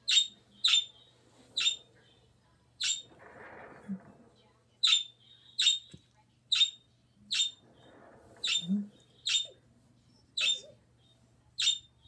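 Budgerigars calling: about a dozen short, sharp, high chirps spaced irregularly, roughly one every half second to a second, with fainter, softer sounds between.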